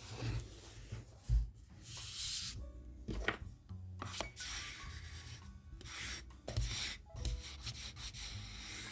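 Paper being rubbed in a series of short, separate strokes while end pages are glued and smoothed onto the notebook covers.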